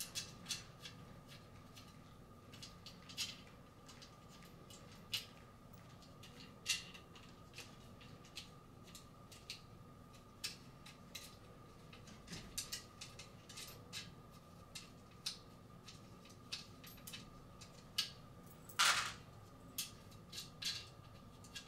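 Irregular small metallic clicks and taps as wing nuts are turned off the studs of a black metal light-fixture crown by hand, with one louder clack near the end.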